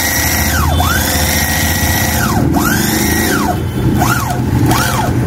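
Hand-held Bravo single-stitch bag closer sewing machine stitching a woven polypropylene sack. Its small electric motor whines up and back down in several runs as the trigger is pressed and released, the last runs shorter, over a steady low hum from the stitching mechanism.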